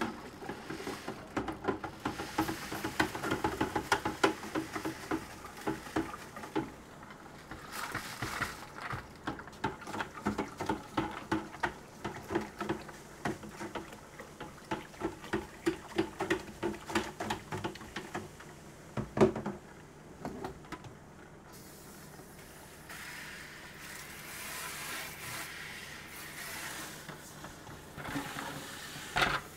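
Calcium nitrate being stirred into water in a plastic bucket to make a hydroponic nutrient solution: quick, uneven knocks and sloshing of the stirrer against the bucket, with one louder knock a little past the middle. The stirring stops about two-thirds of the way through, and a steady hiss carries on after it.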